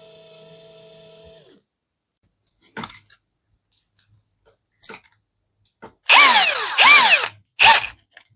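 Parkside Performance PABS 20-Li C2 brushless cordless drill motor winding down and falling quiet about a second and a half in. After a couple of light clicks come two short, loud trigger bursts, the motor pitch rising and falling each time, and a sharp click near the end.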